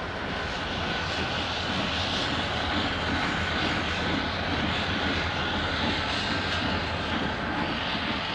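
Diesel-electric freight locomotives rolling past, their diesel engines running with a steady drone; the sound grows a little louder about a second in.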